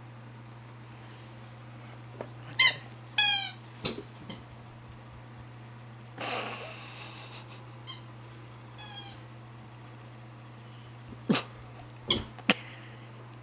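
Dog's red ladybug squeaky toy squeaking as the dog mouths it: short high squeaks about two and a half to three and a half seconds in, a louder, hissier squeak around six seconds in, then a few sharp knocks near the end.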